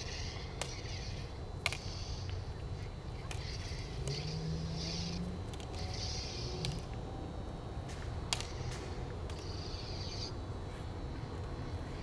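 Bamboo stick striking a plastic toy light saber blade: several sharp clacks at irregular intervals as the two weapons meet, over a steady low rumble.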